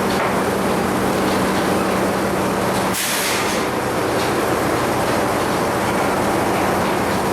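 Old sawmill machinery running with a loud, steady mechanical clatter. A low hum cuts out about three seconds in, together with a short burst of hiss.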